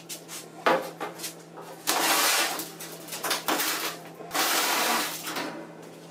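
A large thin rusty steel sheet slid across a steel table top, scraping and rattling, with a sharp metallic bang about two-thirds of a second in and three longer scraping passes after it. A faint steady hum runs underneath.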